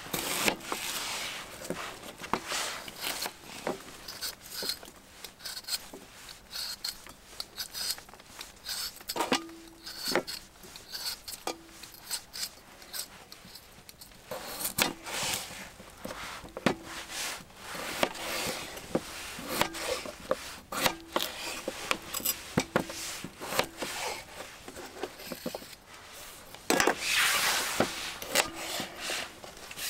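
Knife cutting vegetables on a small wooden cutting board: a run of irregular taps, clicks and scrapes as the blade goes through the food and meets the board. A louder burst of rustling comes near the end.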